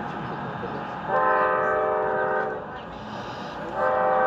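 Locomotive air horn sounding a chord of several steady tones: one long blast of about a second and a half, then a second blast starting near the end.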